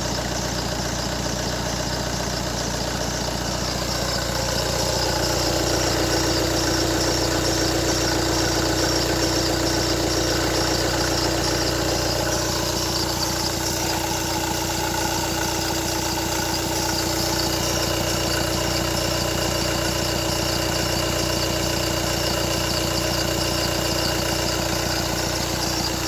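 An engine running steadily at idle. About five seconds in it grows a little louder and a steady hum comes up over it, holding for the rest of the time.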